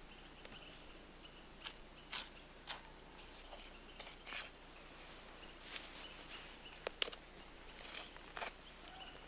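Knife cutting and peeling the hide off an elk's hind quarter during field skinning: faint, short scraping and slicing strokes, about ten at irregular intervals.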